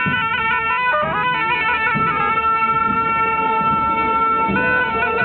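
Reedy wind-instrument music: a melody moving in steps over a steady drone note, holding one long note through the middle before moving on near the end.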